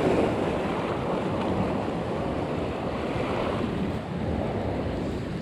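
Ocean surf washing in a steady rush, with wind blowing on the microphone.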